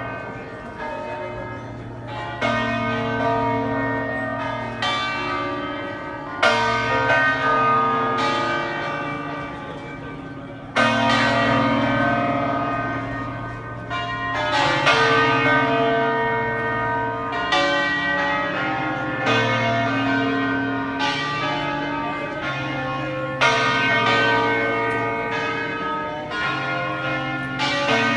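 Church bells ringing the noon peal: several bells of different pitches are struck in turn, each stroke ringing on and overlapping the others.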